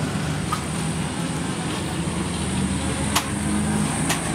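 Busy street ambience: a steady traffic rumble with faint voices, a thin high whine through most of it, and two short sharp clicks, about three seconds in and near the end.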